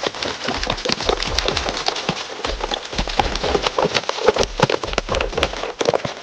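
Dense, crackling, spattering noise like liquid or small pellets pouring and splashing, over background music with a steady bass beat.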